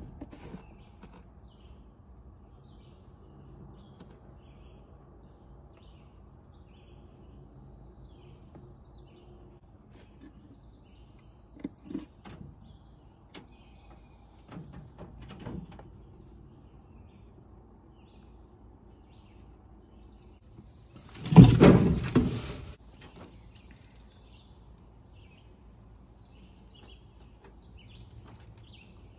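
Songbirds chirping in the background, with a high trill heard twice. A few light clicks and rustles come from the hutch, and about two-thirds of the way through there is a loud burst of noise lasting about a second.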